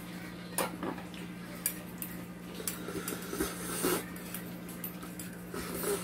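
Metal spoon and ladle clinking lightly against the pan and dishes, a handful of short clinks spread through, over the steady hum of a small handheld fan.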